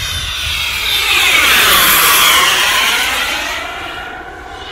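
K45G4 turbine jet engine of a radio-controlled F22 Raptor model jet making a pass overhead. It grows louder to a peak about two seconds in, then fades as the plane goes by.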